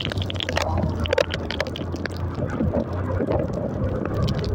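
Motorcycle engine running steadily while riding through rain on a wet, muddy road, mixed with the hiss of rain and splashing water and many scattered sharp ticks.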